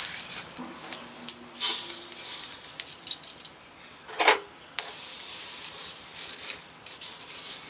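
Dry-roasted whole spices (fennel, fenugreek, cumin, mustard seeds and peppercorns) rattling and scraping as they are tipped from a small kadai onto a brass plate and spread with a wooden spatula. A sharp clack sounds a little over four seconds in.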